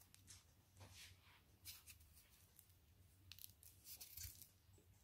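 Faint, scattered scrapes and clicks of a kitchen knife cutting into the shells of boiled chestnuts, over a low steady hum.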